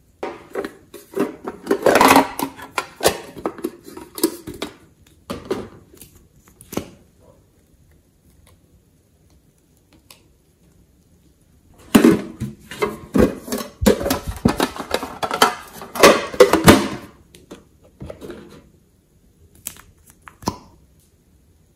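Sticky clicking and crackling of glossy slime being poked and worked with a small stick in a glass dish, in two long runs of quick clicks with a quiet gap between them. A few single clicks near the end come from a lipstick tube being handled and opened.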